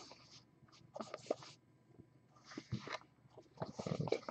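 Shrink-wrapped cardboard trading-card boxes handled and turned over in the hands: several short bursts of plastic wrap crinkling and rustling, with a few light taps.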